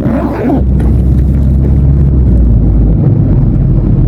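Mercedes-Benz OF-1519 BlueTec 5 bus's diesel engine running steadily and loud, with wind noise on the microphone. A brief sweeping sound comes in the first half-second, and the engine note shifts about three seconds in.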